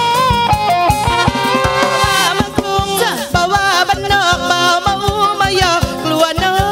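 A woman singing into a microphone over a live band, with a steady drum beat under the melody.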